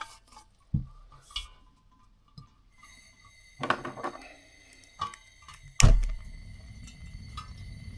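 Metal portable gas heater being handled and set down: a series of separate knocks and clatters, the loudest thunk about six seconds in, followed by a low steady rumble.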